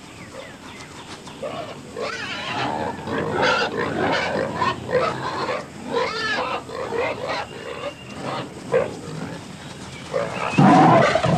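Wild pigs grunting and squealing in short, repeated calls, which grow much louder and denser near the end.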